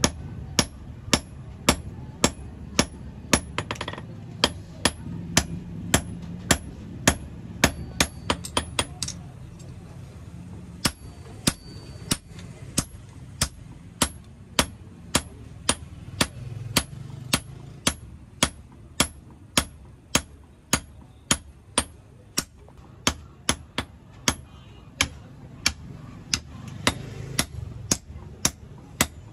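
Hand hammer forging a red-hot iron piece on a steel block anvil: sharp metal-on-metal blows at about two a second, with a short pause about nine seconds in.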